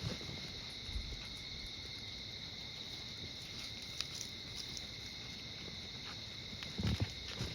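Insects chirring steadily in a high, continuous drone, with a soft low thump of a footstep near the end.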